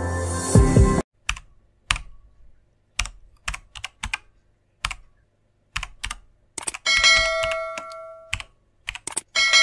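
Ambient music ends with a short whoosh about a second in. Irregular typing clicks follow as an outro sound effect, and a ringing notification-bell ding sounds twice near the end.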